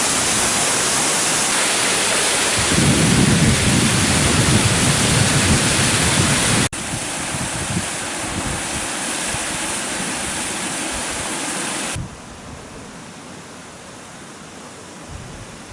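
Waterfall's rushing water, a loud steady hiss of noise, with a low rumble added from about three seconds in. It breaks off abruptly twice, at about seven and twelve seconds, and is much quieter after the second break.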